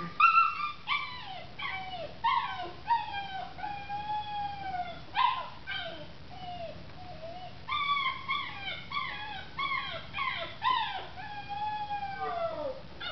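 Nine-week-old kitten meowing over and over, begging for fried chicken: a quick run of short calls that slide down in pitch, with a couple of longer drawn-out meows.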